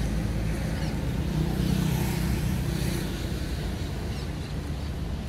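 An engine humming steadily, loudest about two seconds in and easing off after, over a noisy outdoor background.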